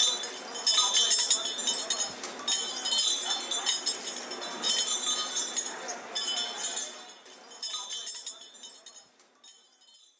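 Metallic clinking and jingling, uneven and busy, thinning out about nine seconds in and stopping just before the end.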